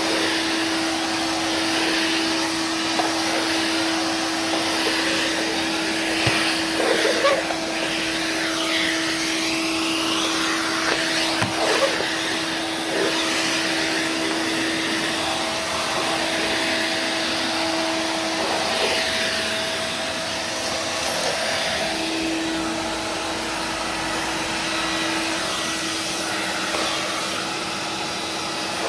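1994 Numatic NVR375 vacuum cleaner running while vacuuming: a steady motor whine over the rush of air, with a few light knocks. About two-thirds of the way through, the whine wavers and dips for a moment before settling again.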